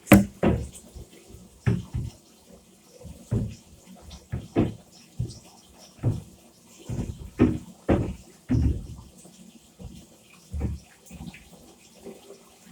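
Irregular splashes and hard plastic knocks as vacuum cleaner parts are washed and handled by hand in water.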